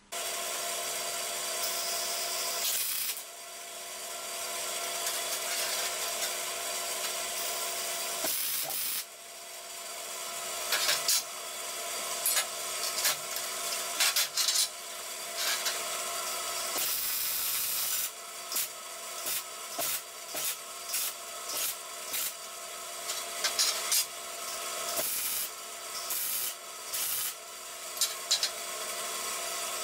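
MIG welder arc-welding steel square tube. A few long, steady crackling runs make up the first half, and a quick string of short tack welds, roughly one a second, fills the second half.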